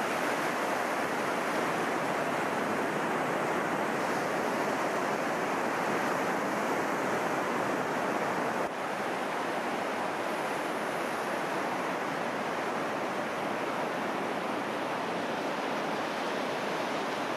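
Ocean surf: waves breaking and washing on a beach in a steady rush, which drops slightly in level about halfway through.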